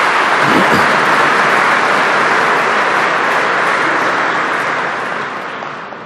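A large audience applauding steadily, the clapping dying away near the end.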